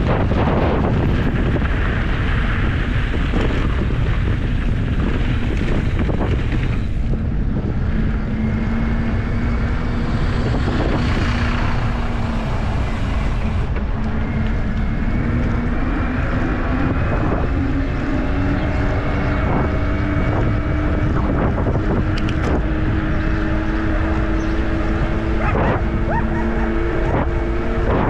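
Wind buffeting a helmet- or bar-mounted camera's microphone on a mountain bike at speed, over steady rolling noise from knobby tyres on gravel and then asphalt. From about a third of the way in, a steady hum rises slowly in pitch as the bike speeds up.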